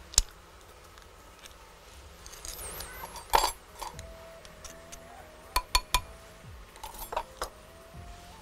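Metal garlic press clicking and clinking against a glass bowl as garlic is squeezed through it and knocked off into yogurt: several sharp separate clicks, including a quick cluster of three about halfway through.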